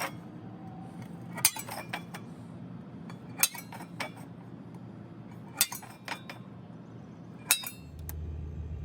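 Sharp metal-on-metal clinks on a stainless steel utensil caddy: four main strikes about two seconds apart, each followed by one or two lighter ones. A low steady hum gets louder near the end.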